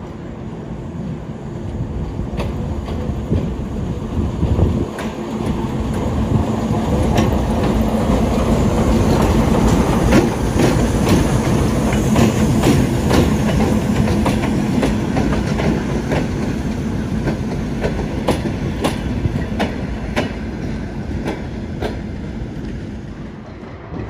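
Diesel shunting locomotive passing close by: its engine hum swells and then fades away, with the wheels clacking over rail joints as it goes.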